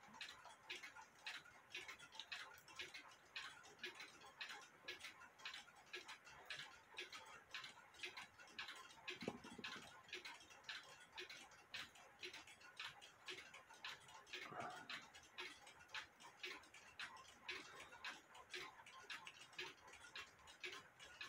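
Faint, quick and even ticking of a mechanical clock movement, with two soft handling sounds about nine and fourteen seconds in.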